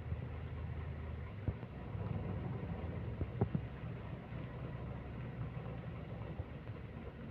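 Hino RK bus's diesel engine running, a low steady rumble with a couple of faint knocks.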